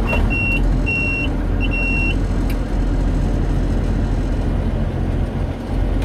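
Massey Ferguson 8570 combine's diesel engine running steadily, heard from inside the cab. A high-pitched cab warning buzzer beeps in short, uneven pulses for about the first two seconds and then stops, and a single click follows soon after.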